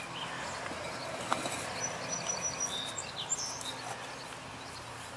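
Steady outdoor background with faint bird chirps in the middle stretch. A few light knocks come from a concrete wall block being set down on a wet cement bed, one about a second in.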